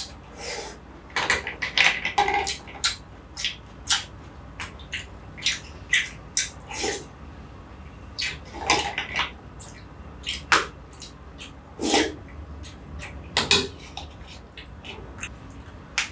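Close-up eating sounds of shwe yin aye, a Burmese coconut-milk dessert with green jelly strands and soaked bread: wet slurps as strands are sucked in, with many sharp wet smacks and clicks of chewing between them. The longer slurps come about two seconds in, around nine, twelve and thirteen seconds.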